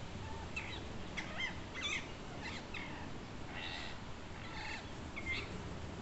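Feral rose-ringed parakeets calling: a string of short, high calls that swoop steeply up and down in pitch, with a couple of harsher, buzzier calls in the middle, over a steady low background rumble.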